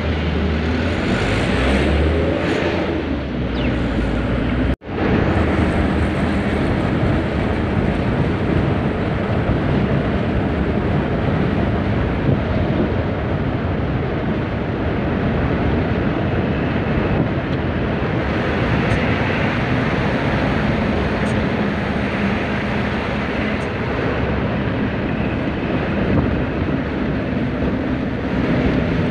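Bus engine and tyre noise heard from inside the driver's cab while driving on a toll road. It is steady throughout, apart from a sudden brief dropout to silence about five seconds in.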